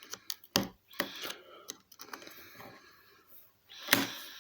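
Small sharp clicks and light scraping on the side of a mobile phone as dust is dug out from around its volume and power buttons, with the loudest click about four seconds in.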